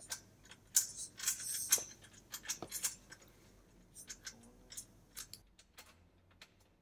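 Small screws being tightened by hand with a screwdriver into T-slot nuts on an aluminium extrusion rail: scattered metallic clicks and short scrapes, busiest in the first three seconds and thinning out after about five seconds.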